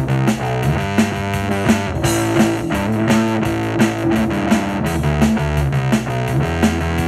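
Music: a synth bass line of held low notes that change pitch every second or so, over a steady beat.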